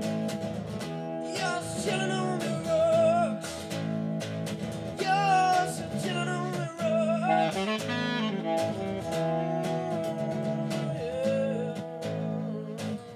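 Music: acoustic guitar strumming steady chords, with a wavering lead melody over it that comes in and out.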